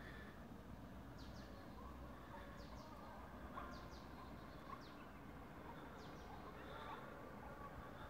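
Quiet outdoor evening ambience: faint, short, high bird chirps, often in pairs, about once a second over a low steady background noise.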